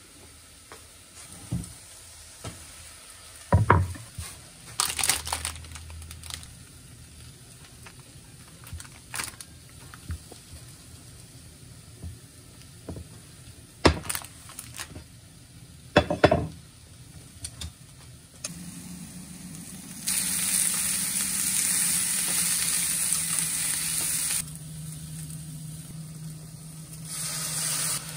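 Scattered knocks and clicks of kitchen utensils on a cutting board and pan. Then cubes of deep-fried tofu (atsuage) sizzle in a hot frying pan with a steady low hum underneath. The sizzle turns loud for about four seconds, settles, and swells again near the end.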